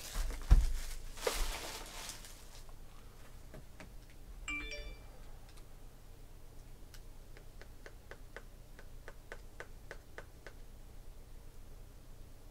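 Card-pack wrapping crinkling, with a sharp thump about half a second in. A brief chime follows a few seconds later, then a run of faint, light ticks at about three a second.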